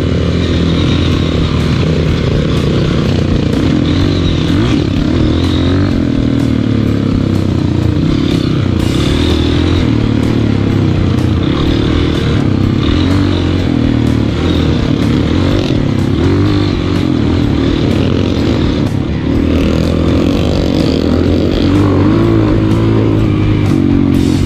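Single-cylinder Honda trail motorcycle running at moderate, fairly steady revs while being ridden, the pitch rising and falling a little, with frequent rattles and clicks over the rough trail.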